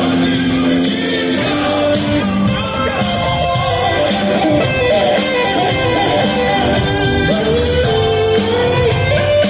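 Live soft-rock band playing a song, with guitars and singing.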